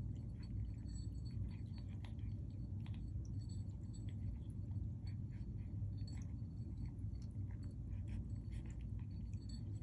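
Cat eating food from a bowl: soft, irregular chewing and lapping clicks over a steady low hum.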